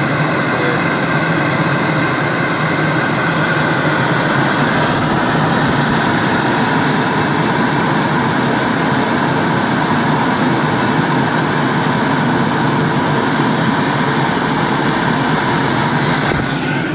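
Coleman Mach RV roof air conditioner's blower fan running steadily, pushing warm air from its electric heat out of the ceiling vent. It gets a little fainter near the end.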